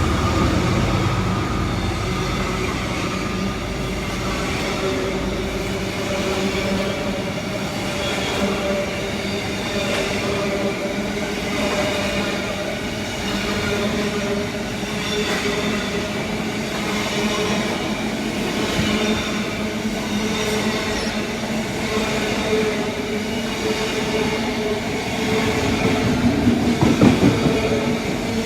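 Train running on the rails: a steady rumble with several droning tones that drift slowly in pitch, and a louder swell near the end.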